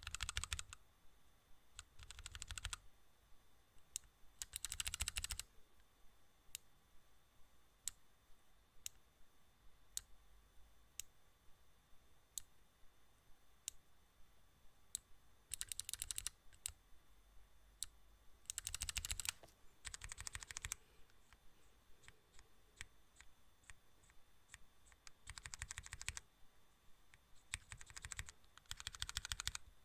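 Faint clicking: short runs of rapid clicks, about nine of them, with single clicks spaced out between the runs.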